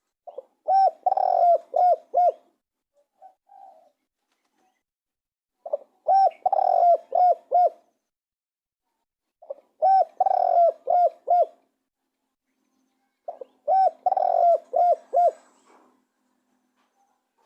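Spotted dove cooing: four phrases of several rounded coos each, repeated about every four seconds.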